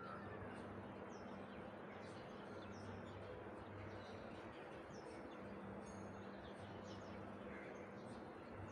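Quiet background ambience with several short, high, falling bird chirps scattered through it, over a low hum that comes and goes.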